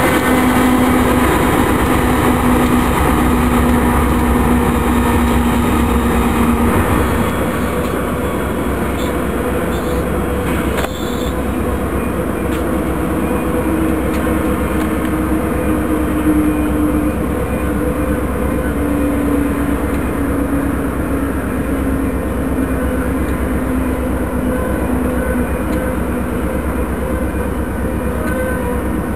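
Union Pacific GE AC44CW diesel-electric locomotives running under load as they move a loaded grain train across a steel bridge: a steady engine drone over the low rumble of the freight cars rolling on the rails. It gets a little quieter about seven seconds in as the train draws away.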